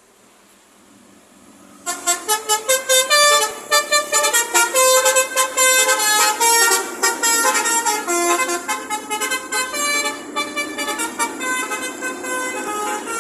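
A bus's basuri telolet horn, the multi-tone musical air horn, starting about two seconds in and playing a fast tune of short notes that change pitch several times a second.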